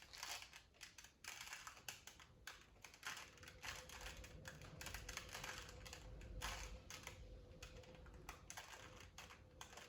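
Faint, irregular plastic clicks and clacks of a 2x2 Rubik's cube being twisted by hand, several turns a second, as it is being solved.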